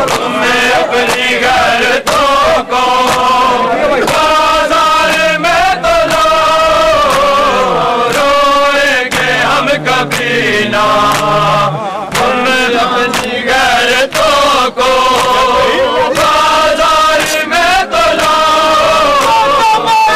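Voices chanting a melodic chant in repeated phrases, loud and continuous.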